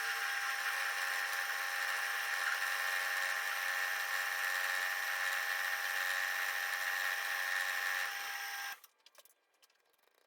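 Small CNC mill spindle running a 6 mm carbide end mill through 316 stainless steel bar, milling a flat with a light depth of cut: a steady high-pitched whine that eases slightly about eight seconds in, then cuts off suddenly.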